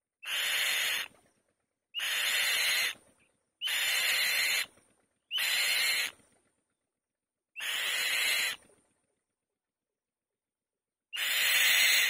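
A female white-tailed kite on her nest gives six harsh, rasping calls, each about a second long. They come every second and a half to two seconds, with a longer pause before the last one.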